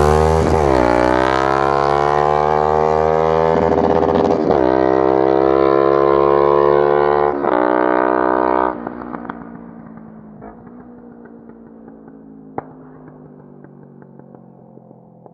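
Exhaust of a 2006 Kawasaki ER-5 parallel-twin motorcycle with a shortened stock muffler, revved several times, each rev rising and falling back. About nine seconds in the sound drops sharply and the engine carries on much quieter and steadier.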